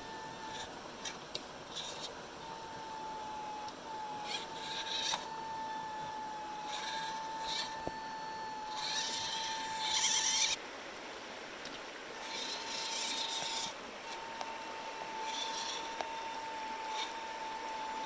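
Small RC crawler's electric drivetrain running: a steady high whine that cuts out a few times, with several bursts of hissy grinding noise as it drives and climbs.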